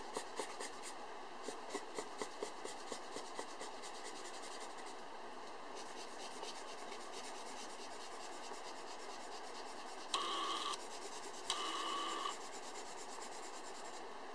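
Coloured pencil shading on paper with quick back-and-forth scratching strokes, about four or five a second, clear at first and then fainter. Twice near the end a short, steady beep-like tone, each under a second, sounds over it.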